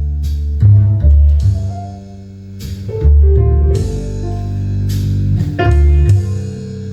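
Recorded music from a CD playing loudly through a hi-fi speaker system of horn speakers, woofers and tweeters. Deep bass notes change about once a second under plucked notes and sharp drum-like hits.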